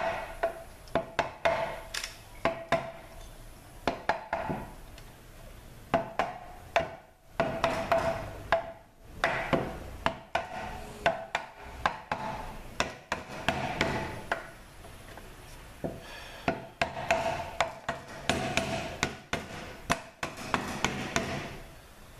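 Irregular metal knocks and clanks, some ringing briefly, from parts inside a Ford 6F35 automatic transmission case being worked loose. The part has to come out straight and is sticking.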